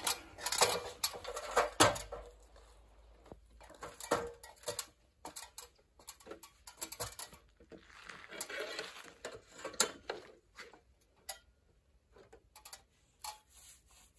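Paintbrush strokes rubbing tar oil into rough old timber logs, in two longer spells of scrubbing, with scattered light clicks and knocks between them.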